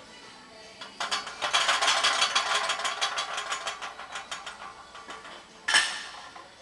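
A rapid metallic clicking rattle, like a ratchet, that starts about a second in and slows and fades over about three seconds, followed by one sharp knock near the end.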